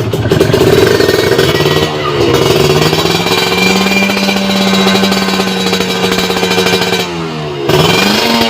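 Kawasaki Ninja RR two-stroke 150 cc engine revving through a WRS aftermarket chrome exhaust. The revs climb about two seconds in and hold high and steady for several seconds. They drop sharply near the end, then rise again.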